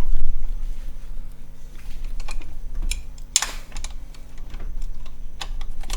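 Irregular metal clicks and clinks of spanners working on a tight steel pulley bolt, with a short scraping rasp about halfway through.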